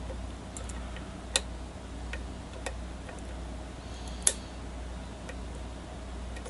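Lock pick clicking against the pins inside a challenge lock during single-pin picking: a few sparse, irregular clicks, the sharpest about four seconds in.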